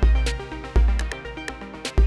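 Electronic dance music: two heavy, deep bass kicks, one at the start and one about three-quarters of a second later, with crisp hi-hat ticks and sustained synth tones over them.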